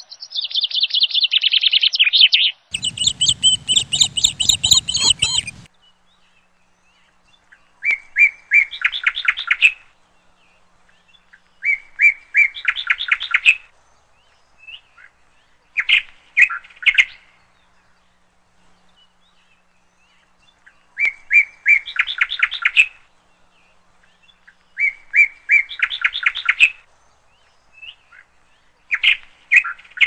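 A bird singing the same short phrase of rapid trilled notes over and over, about every four seconds, after a burst of denser chirping in the first few seconds.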